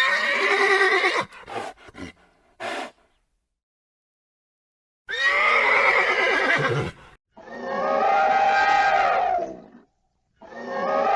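Horse neighing: a whinny at the start followed by a few short snorts, then after a pause of about two seconds, more long drawn-out neighs.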